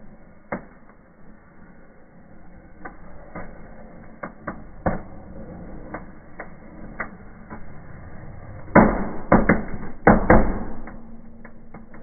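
Fireplace fireworks going off: scattered sharp cracks and pops through the first eight seconds, then a quick run of much louder bangs about nine to ten and a half seconds in.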